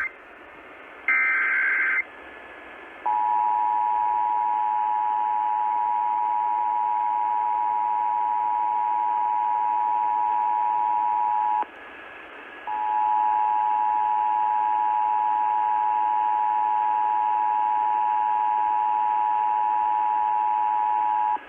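Emergency Alert System test signals received over the air. A short burst of the screeching digital SAME header comes about a second in. Then the two-tone EAS attention signal sounds twice, each time for about eight and a half seconds, with a one-second break between. Steady radio hiss lies under it all.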